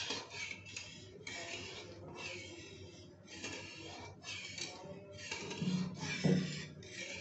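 A metal spatula stirring and scraping thin dal around a metal kadhai, in strokes about once a second, with two louder low knocks near the end.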